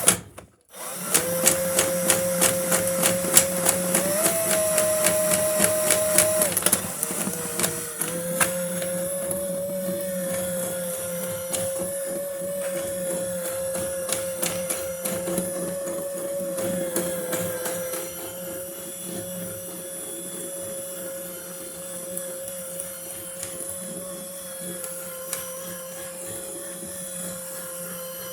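Drain snake turned by a power drill at low speed, feeding its cable down a washing machine drain line clogged with lint. The motor runs with a steady whine, and the cable ticks and rattles rapidly for the first several seconds. The motor dips briefly about seven seconds in, then runs on steadily.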